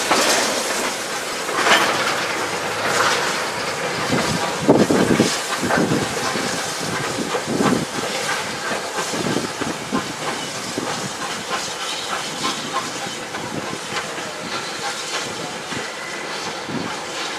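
Victorian Railways J-class steam locomotive J549 pulling away with a mixed goods train. It gives a steady steam hiss with heavier exhaust beats about once a second in the middle, while the carriages and wagons clatter over the rail joints. The sound gradually fades as the train draws away.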